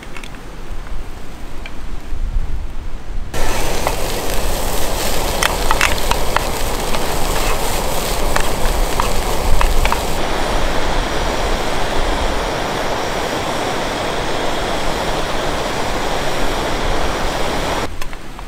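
Chopped onions frying in a pan on a camping stove: a loud, steady sizzle with scattered crackling pops, starting suddenly about three seconds in. A low rumble comes before it.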